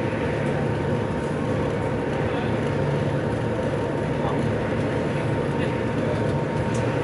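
Steady drone of an Austal high-speed ferry's engines and KaMeWa waterjets running at speed, heard inside the passenger cabin: a low hum with a thin steady whine above it.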